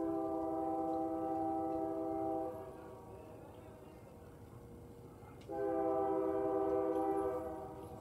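Locomotive air horn sounding two long blasts about three seconds apart, each a steady sustained chord.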